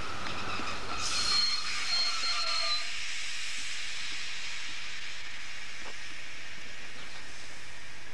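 Steam-hauled passenger train rolling slowly, with a high-pitched squeal of wheels or brakes and a hiss for the first few seconds. After that comes a steady rolling and hissing noise.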